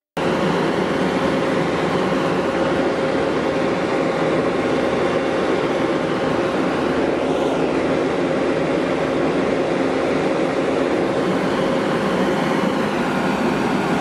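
Volvo road roller's diesel engine running steadily as the machine rolls over fresh asphalt, a loud, even drone heard close up from on the machine. It cuts in abruptly at the start.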